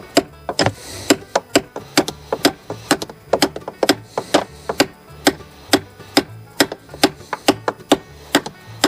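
Background music with a bass line and a quick, steady beat of sharp knocks.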